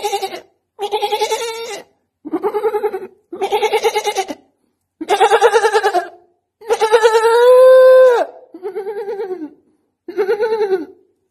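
A man singing a string of short, held wordless notes in a quavering, bleating voice with a fast wobble, like a goat. There are brief breaks between the notes, and the longest and loudest note comes about two-thirds of the way through.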